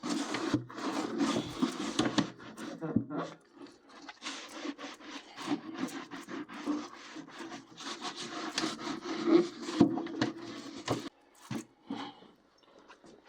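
Repeated scrubbing and wiping strokes against the inside of a toaster oven, working at greasy walls coated with dish-spray cleaner. The rubbing runs in irregular strokes with a brief pause after about three and a half seconds, and stops about two seconds before the end.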